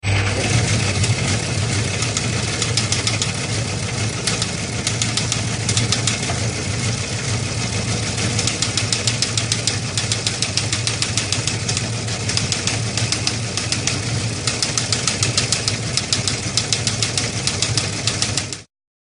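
An engine running steadily, with a fast, dense ticking over a low hum; it starts abruptly and cuts off suddenly near the end.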